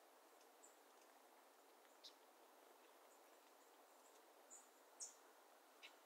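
Faint, quiet meadow ambience with a soft steady hiss, broken by about five brief, high-pitched small-bird chips and calls, the loudest about five seconds in.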